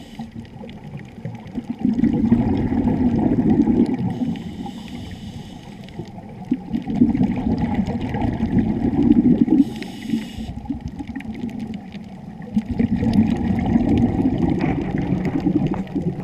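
Scuba breathing heard underwater: three long, gurgling rushes of exhaled bubbles about five seconds apart, with a short hiss from the regulator on an in-breath between the second and third.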